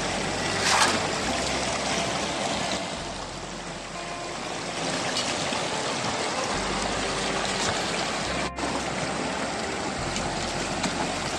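River water rushing steadily through a wooden gold-sluicing box lined with carpet, with a splash about a second in as gravel is worked by hand in the flow.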